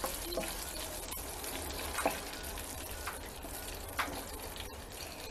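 Oil sizzling steadily as dried chiles de árbol and a garlic clove fry in a small enamel saucepan, with a few sharp ticks spread through it.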